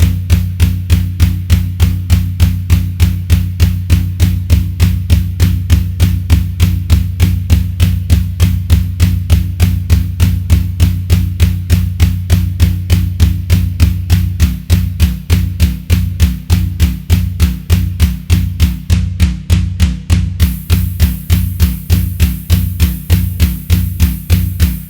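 Electronic drum pattern from a Nord Drum 3P drum synthesizer: even hits about four a second over a deep held bass tone. About halfway through, the bass starts pulsing with the beat.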